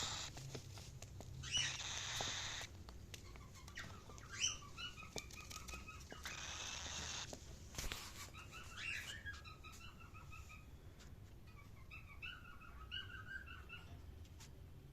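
Cockatiel chirping in several short runs of quick repeated chirps. Three rushing, hiss-like bursts of about a second each come in the first half.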